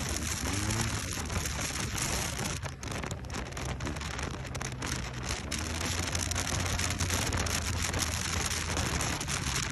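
Wind rushing over the microphone of a maxi-scooter ridden at speed, as a steady hiss with the low drone of the engine and road underneath.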